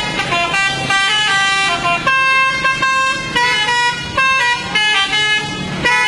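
A Garuda Mas bus's 'telolet' multi-tone horn playing a tune: loud horn notes that step from pitch to pitch every fraction of a second, with a longer held chord in the middle and brief breaks between phrases.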